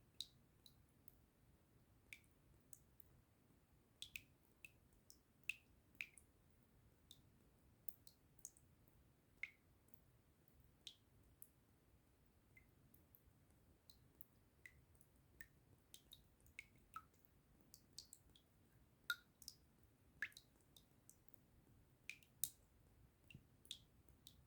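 Water drops dripping: short, separate high plinks at an uneven pace, about one or two a second, some louder than others.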